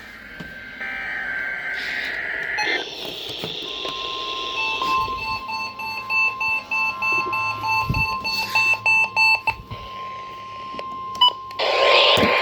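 NOAA Weather Radio Required Weekly Test signals: buzzy, warbling digital SAME data bursts, then a steady high alert tone with a rapid electronic beeping over it, about two or three beeps a second, for several seconds.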